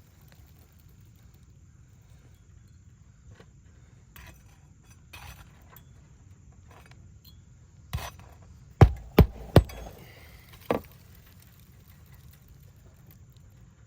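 Steel shingle bar knocking and clinking against roofing nails under asphalt shingles: a few faint taps, then one knock, three sharp quick strikes about half a second apart, and one more.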